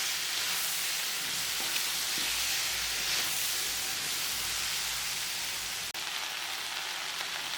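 Sliced okra and onions sizzling in sesame oil in a pan, a steady frying hiss, with a momentary break about six seconds in.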